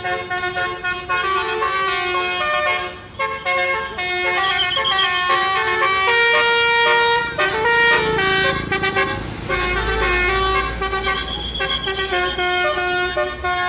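Basuri 'telolet' multi-tone musical bus horn playing a melody of several notes sounded together, stepping quickly from pitch to pitch with one longer held note midway. A low rumble runs underneath in the second half.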